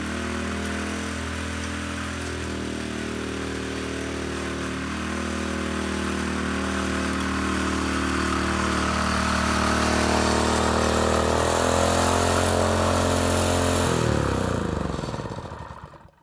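Walk-behind gas rototiller's small single-cylinder engine running steadily under load as its tines churn the soil. Near the end it is shut off and winds down to a stop, its pitch falling.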